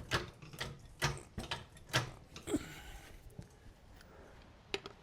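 Hand tools being worked on a car: a run of irregular metallic clicks and knocks, with a brief hiss about halfway through and a quieter stretch before a few more clicks near the end.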